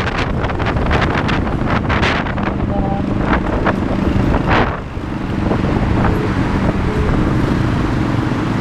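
Riding noise from a group of motorcycles in traffic: wind buffets the microphone in gusts over a steady engine drone.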